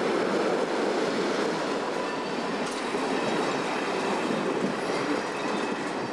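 Flat freight wagons rolling past close by: a steady rumble and rattle of steel wheels on the rails, with a faint wheel squeal, easing off a little near the end.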